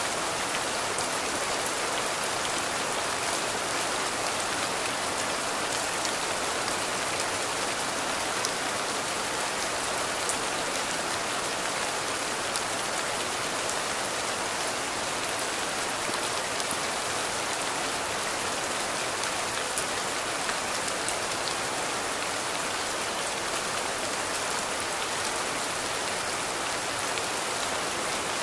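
Steady rainfall: an even hiss of falling rain with scattered sharp ticks of individual drops.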